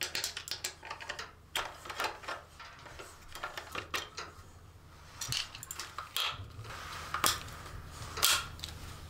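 Irregular short metallic clicks and light rattles from a 10 mm socket on a T-bar handle being spun to back out a bolt. Near the end comes the knocking of the plastic rear fender being handled as it comes free of the frame.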